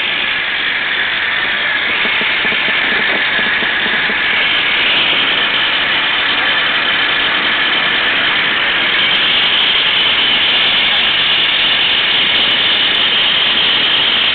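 A machine running steadily and loudly, with a high whine whose pitch drifts slowly up and down, a little louder in the second half.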